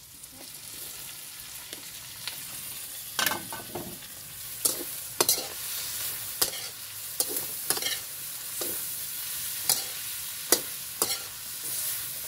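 Long beans, chicken and pork sizzling as they are stir-fried in a wok: a steady hiss, with irregular sharp clinks and scrapes of the spatula against the pan.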